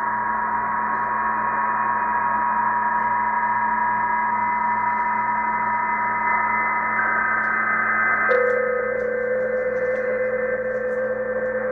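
Several PSK31 digital-mode signals on the 20-metre amateur band (14.070 MHz, upper sideband), played through a Tecsun PL-990x shortwave receiver's speaker: steady tones at several different pitches over band hiss. The lowest tone is missing at first and comes back about eight seconds in, while some of the higher ones stop partway through.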